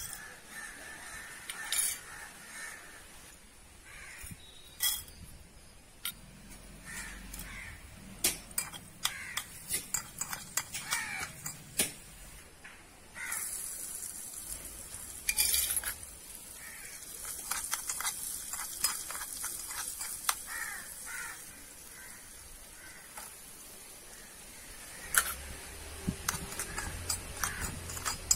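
A small metal spoon clinks and scrapes against a miniature aluminium pan over a twig fire as mustard seeds and then chopped onion are added to the hot oil and stirred. There is a soft frying sizzle, with a run of sharp ticks partway through.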